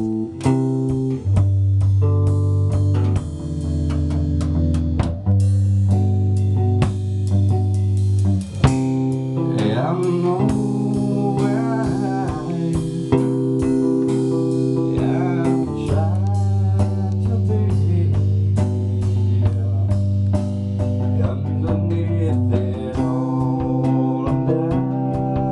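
A band playing live in a small room: guitar and bass guitar over a drum kit, with a man singing into a microphone from about ten seconds in.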